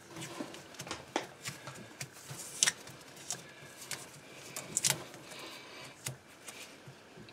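Ethernet cable being pulled by hand through a grommeted hole in a wooden cabinet: irregular rustling and scraping of the cable jacket against the grommet and wood, with scattered sharp clicks, the loudest two about two and a half and five seconds in.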